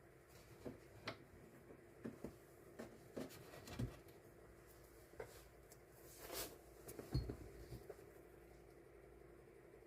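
Faint scattered taps, clicks and a soft rustle of die-cut stickers and packaging being handled and sorted by hand, over a low steady hum.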